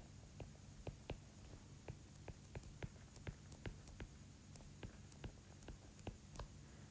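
Faint, irregular light ticks and taps, a few a second: a stylus tapping on a tablet screen while words are handwritten.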